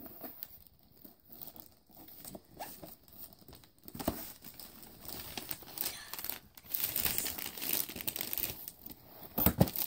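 A cardboard gift box being opened by hand: irregular scraping, rustling and tearing of cardboard and packing, busiest in the last few seconds, ending with a couple of sharp knocks.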